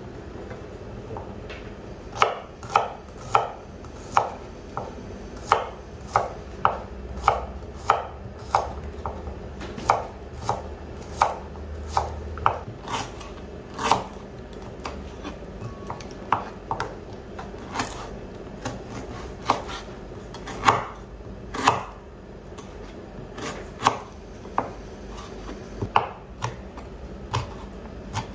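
Kitchen knife slicing shallots and lemongrass on a wooden cutting board, the blade knocking the board in sharp, uneven strokes about one or two a second. The strokes start about two seconds in and come more sparsely later.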